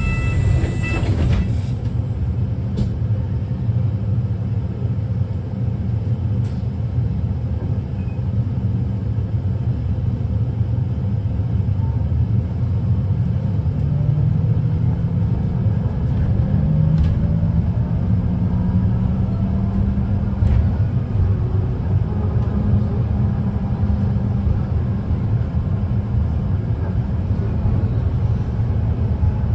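Wrightbus New Routemaster series-hybrid bus running, a steady low rumble heard from inside the bus. About halfway through, a whine rises in pitch as the bus gathers speed, with a few faint clicks along the way.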